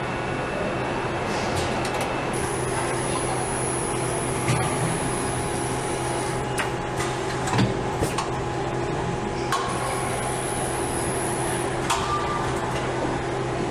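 Automated assembly-line machinery on an electric-drive-motor station: a steady hum with a faint high whine in two stretches, and scattered clicks and clunks, the loudest about halfway through.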